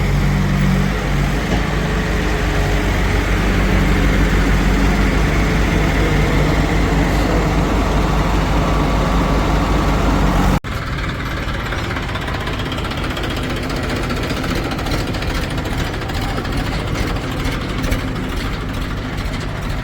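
Heavy diesel engine running steadily with a deep, even note. About halfway through, the sound cuts abruptly to a different, lighter engine note that keeps running.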